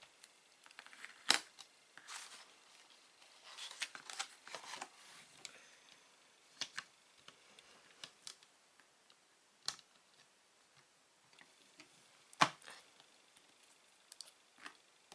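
Handling a stamp positioning press: an ink pad dabbed against clear stamps on the press's hinged clear lid and the lid pressed down onto cardstock, with scattered sharp clicks and knocks, the loudest about twelve seconds in, and soft rustling between them.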